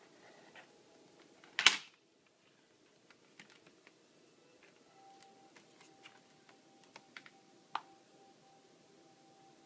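Metal steelbook game case being handled and opened: one loud sharp click about two seconds in, then scattered light clicks and taps of the case and discs, one sharper near the end.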